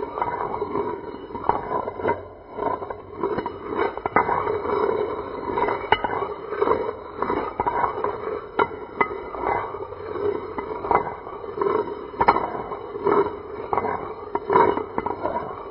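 Metal gear wheels turning, with a steady grinding rumble broken by irregular clicks and clanks of metal on metal.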